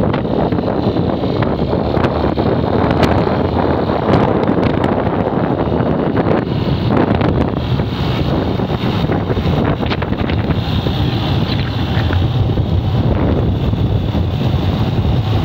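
Loud, steady wind rushing over the microphone of a phone carried on a moving motorcycle, mixed with the low hum of its engine and road noise.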